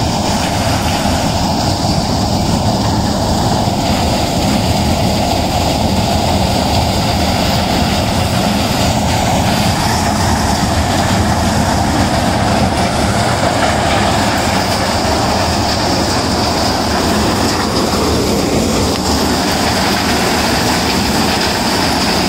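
Maize thresher running, a loud, steady, unbroken machine noise.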